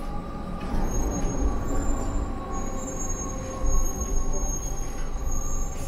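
Gornergrat Railway electric rack train running, a steady low rumble with a thin, steady high-pitched whine over it.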